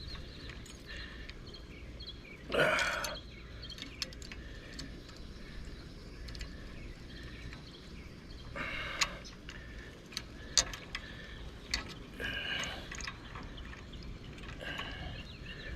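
Safety wire being twisted tight around an anchor shackle with needle-nose pliers: light handling rustle and a few sharp metal clicks, over a steady low background rumble.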